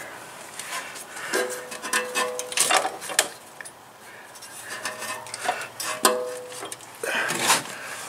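Metal clunks and scraping from a locked-up wood chipper's blade and flywheel being rocked back and forth by hand, with two short squeaks, one about a second and a half in and one about five and a half seconds in. The flywheel only rocks back and forth instead of turning freely.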